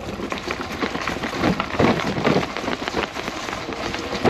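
Electric trike tyres rolling through dry grass, a dense, irregular crackling and rustling.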